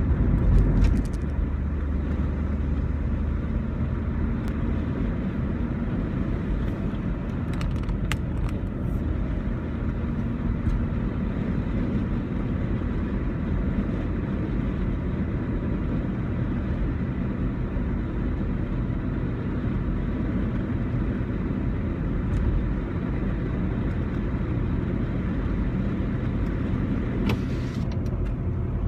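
Car driving, a steady low rumble of engine and tyre noise, with a few faint clicks.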